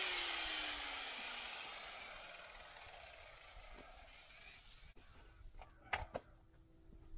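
A guitar chord rings out and fades away, one note sliding down in pitch. It then gives way to a few faint clicks and knocks over a low steady hum.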